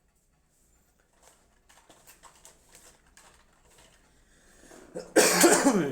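Faint scattered rustles and light handling ticks, then about five seconds in a loud, short vocal outburst from a man that falls in pitch.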